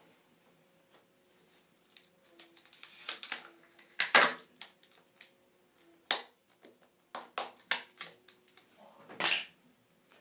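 Irregular sharp clicks and knocks of clear plastic containers and lids being handled, loudest about four seconds in.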